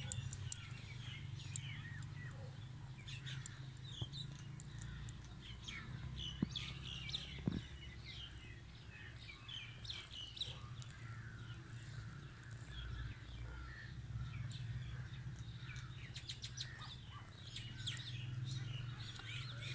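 Birds chirping here and there, with a steady low hum underneath.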